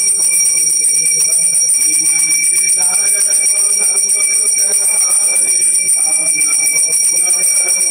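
Brass puja hand bell rung without pause during an aarti, a steady high ringing, with voices singing underneath.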